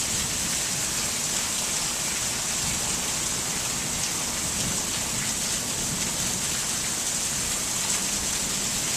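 Heavy monsoon rain pouring down steadily: a dense, even hiss of rain hitting the ground and surfaces.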